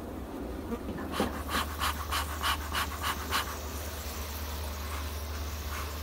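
Bee smoker's bellows squeezed in a quick series of about eight puffs, roughly three a second, sending smoke into an exposed honey bee colony to drive the bees off the combs. Under it is a steady low hum, with the colony buzzing.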